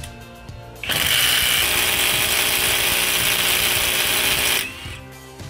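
Einhell TE-CI 18 Li brushless cordless impact driver hammering on a car wheel's lug bolt: a loud, dense rattle that starts about a second in and stops sharply nearly four seconds later.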